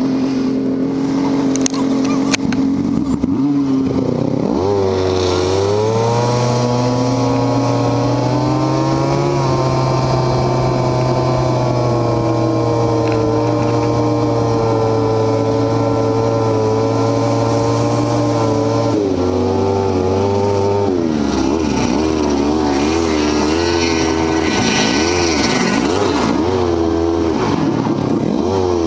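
Yamaha snowmobile engine idling, then revving up about four seconds in and holding a steady cruising note. It eases off around twenty seconds in, and the pitch rises and falls with throttle changes near the end as the sled slows.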